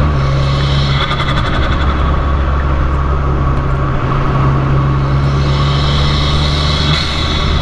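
Fiat 500 Abarth's turbocharged 1.4-litre four-cylinder running through an MPx cat-back exhaust, its note held at a steady engine speed. Near the end the low note shifts slightly.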